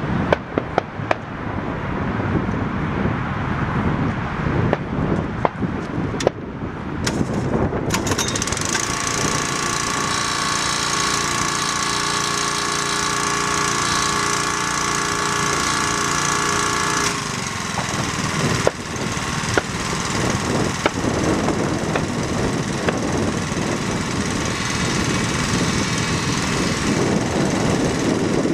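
Pulse jet engine of a control-line speed model running on the ground while held before launch: a loud, rough, rapid buzz that settles into a steadier pitched note for about ten seconds in the middle, then turns rougher again.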